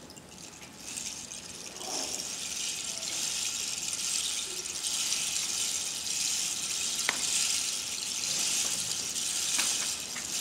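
Rain stick being slowly tipped back and forth, its filling pouring through in a rushing, rain-like hiss. The hiss starts about a second in and swells and ebbs as the stick is turned, with a few light ticks.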